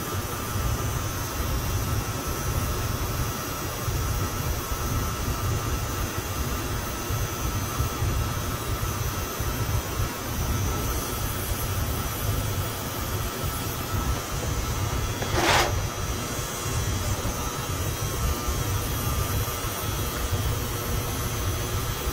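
Brazing torch flame burning steadily on copper refrigerant line, a continuous low rumble and hiss. Beneath it is the steady drone of running air-handling equipment, and there is one brief sharp whoosh about fifteen seconds in.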